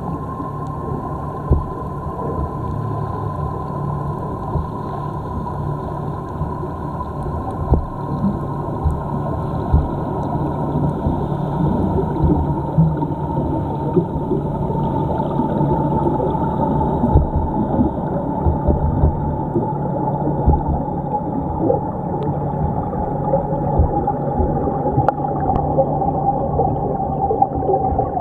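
Underwater sound heard through a camera's housing: a muffled rumble with scattered small clicks and pops, and a steady whine near the top of it that slowly falls in pitch.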